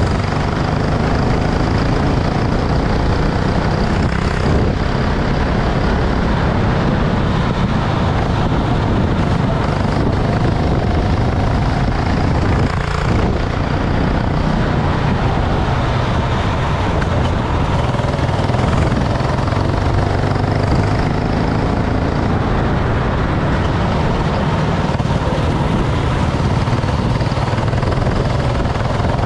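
Racing kart engine running hard without a break, its pitch rising and falling slightly under a dense, steady noise.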